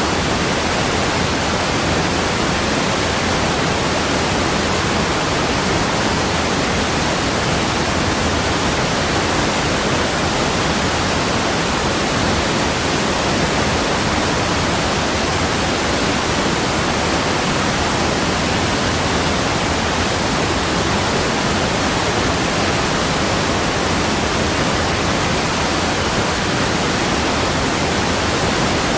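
Waterfall: water falling and rushing in a steady, even roar of noise that does not change.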